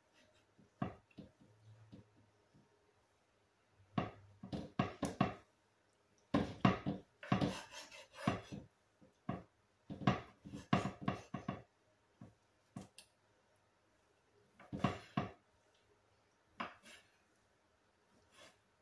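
Large kitchen knife chopping cooked chicken breast on a cutting board: runs of quick knocks, several strokes at a time, with short pauses between the runs.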